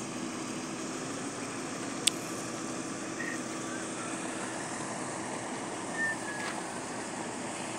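An engine running steadily in the distance under steady outdoor noise, with a single sharp click about two seconds in.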